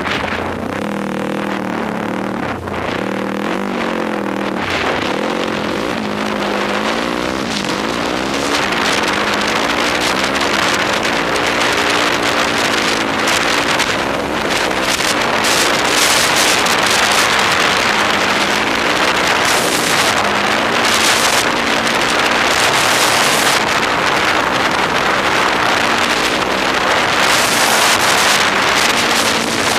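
Yamaha YFZ quad's engine running under way, its pitch rising and falling as the throttle is worked, with wind rushing over the helmet-mounted microphone that grows louder in the second half.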